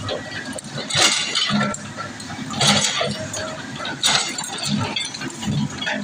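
Excavator demolishing a building: three loud crashes of breaking, clattering debris, with the machine's engine running underneath.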